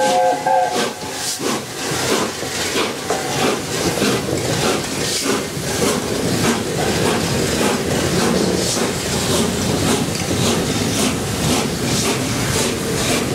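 Steam train passing, hauled by the three-cylinder A1 Pacific 60163 Tornado: the locomotive's chime whistle sounds a chord that cuts off about half a second in. Then come hiss and a steady run of sharp beats about twice a second as the train rolls by.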